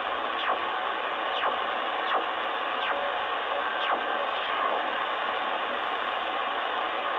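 CODAR ocean radar signal heard through a Sangean ATS-909X2 shortwave receiver in upper sideband: a faint sweeping chirp that repeats every second or so over steady hiss and static, fading somewhat as the receiver is tuned on.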